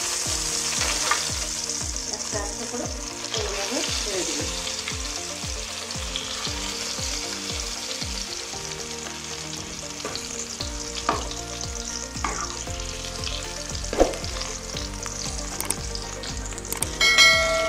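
Stuffed bitter gourds (karela) sizzling as they fry in hot oil in a metal kadai, with a metal spatula scraping and tapping the pan a few times. A short chime sounds near the end.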